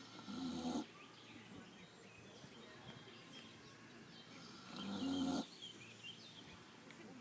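Pot-bellied pig snoring in its sleep: two snores about four and a half seconds apart, each a short rough rumble that cuts off sharply.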